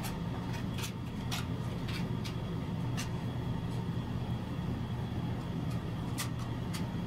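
Flat putty knife spreading and smoothing tile glue on a floor, giving short scraping swipes at uneven intervals. Underneath is a steady low hum.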